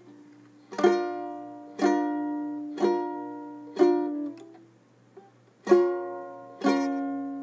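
Chords strummed slowly on an acoustic string instrument, each strum left to ring out: four strums about a second apart, a pause, then two more.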